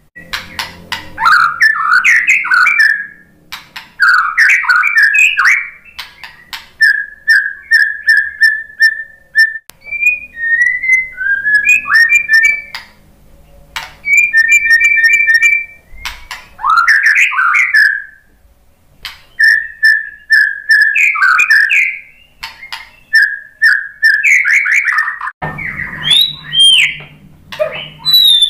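Male white-rumped shama singing a loud, varied song: phrases of clear whistles, quick repeated notes and chattering trills, separated by short pauses.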